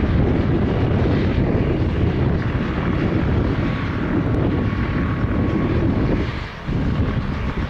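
Utility helicopter's turbine engine and main rotor running on the ground, a steady loud rumble with a faint steady whine above it, dipping briefly about six and a half seconds in.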